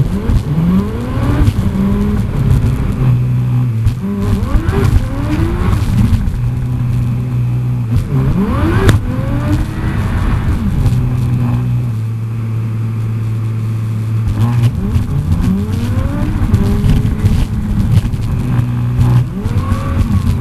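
A moving car's engine and road noise, run fast as a time lapse: a steady engine hum broken by repeated short rising whines as the engine revs up.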